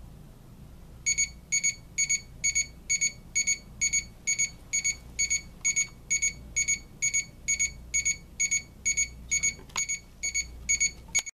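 Equity by La Crosse folding travel alarm clock's alarm going off: high electronic beeps, each a quick double pulse, repeating about twice a second, starting about a second in when the clock reaches its set alarm time.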